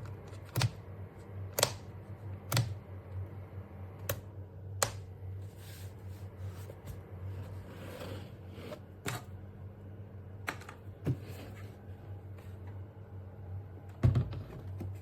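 Scattered sharp clicks and knocks of hard plastic being handled, about nine spread out, with a louder knock near the end, over a steady low hum.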